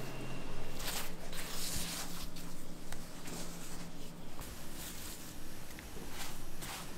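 Irregular soft rustling and brushing as plastic-gloved hands roll and twist strands of twisted-doughnut dough on a floured plastic work table. A faint low hum sits underneath for the first few seconds.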